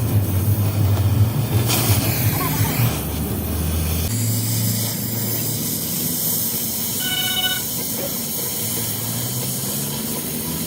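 Steady hissing noise over a low machine hum that shifts about four seconds in, with a short tone about seven seconds in.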